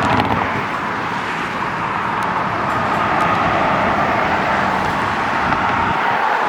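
Fire engine on an emergency run, its mechanical Q siren giving a loud, rough whine over the rumble of the truck's engine. The siren's pitch slides slightly lower near the end, and the engine rumble drops away at about the same time.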